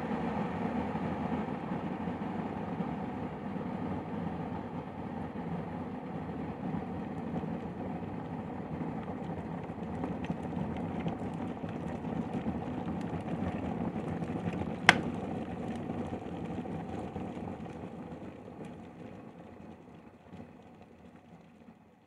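Kettle of water at a full boil, bubbling steadily, with one sharp click about fifteen seconds in. The boiling then dies away over the last few seconds.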